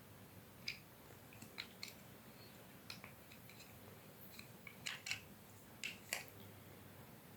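Faint, irregular small clicks and scrapes of hands working on the mini washing machine's plastic parts, a few louder ones in quick pairs near the end.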